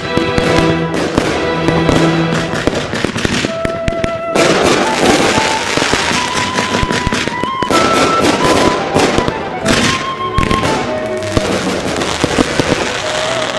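Fireworks going off: a dense crackling of many small reports mixed with bangs, heaviest from about four seconds in. Background music with long held notes plays under it.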